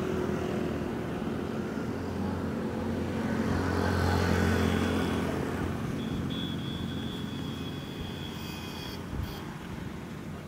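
Small motorcycle engine running nearby: a steady low hum that swells about four seconds in, then fades away.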